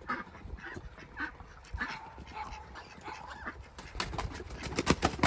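Ducks and a guinea fowl calling, short calls repeated every half second or so; from about four seconds in, a fast run of rustling and clattering takes over.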